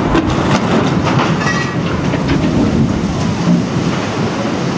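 Cargo ship's hull sliding sideways down the launch ways in a side launch: a loud, continuous rumble and scrape, with a few sharp clacks in the first second or so.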